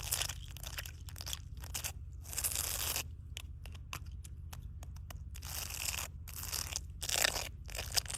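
Water splashing in irregular short bursts, some quick and clipped, others lasting about half a second, over a steady low hum.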